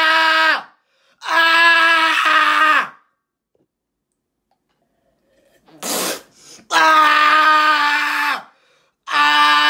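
A teenage boy screaming: long, steady screams held at one pitch, each dropping off at the end, with pauses between them. A short noisy sound comes in the longest pause, about six seconds in.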